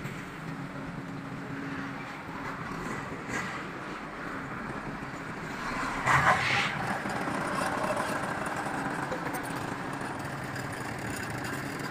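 Heavy diesel engines of a truck crane and a tank-carrying trailer truck running steadily. About six seconds in there is a brief, louder burst of hissing noise.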